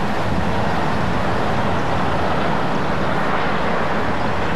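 Steady, loud machine rumble with a low hum running underneath.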